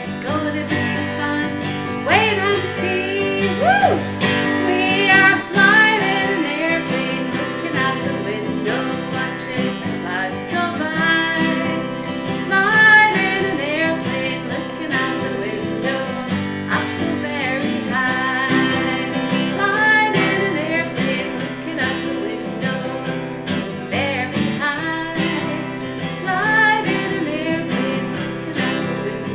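Acoustic guitar music, strummed chords with a melody line over them, playing on without words.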